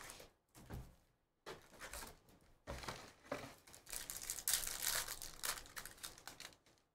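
Trading-card pack wrappers being torn open and crinkled by hand, in a string of crackling bursts with a short pause about a second in.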